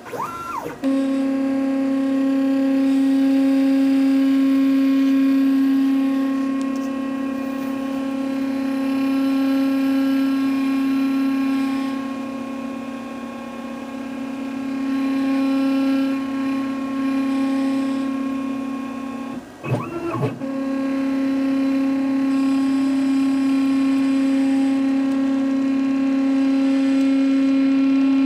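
Stepper motors of a DIY CNC machine whining steadily as an axis feeds slowly during an automatic find-center probing run. The whine rises in pitch as the motion starts, and about 20 seconds in it briefly stops and then rises again as the axis moves off in a new direction.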